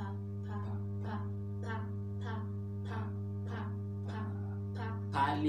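Background music: a guitar picking single notes in a steady rhythm of about three a second over a steady low hum. A voice comes in just before the end.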